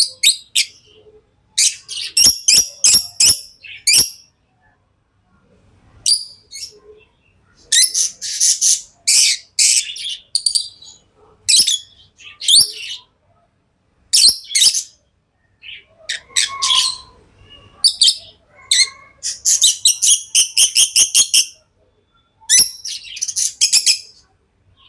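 Lovebirds chirping: bursts of rapid, high-pitched chirps, several a second, broken by short pauses.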